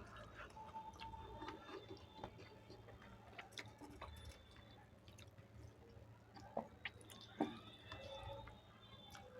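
Faint chewing and small wet mouth sounds of someone eating dal and rice, with a few soft clicks.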